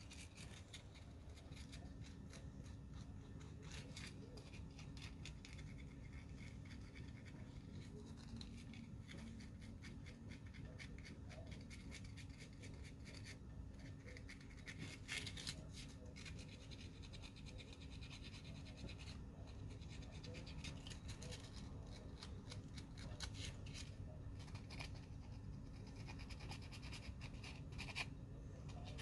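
Faint, irregular scratching and scraping of a small knife shaping tiny model-car mirrors by hand, with a thin steady low hum underneath.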